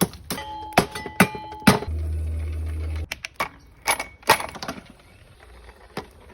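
Metal souvla skewers clinking and knocking against the rotisserie, several strikes ringing briefly. A steady low hum lasts about a second in the middle.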